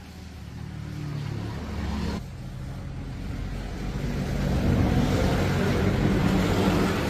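Motor vehicle engine running and growing louder. It changes abruptly about two seconds in, rises to its loudest in the second half, and cuts off sharply at the end.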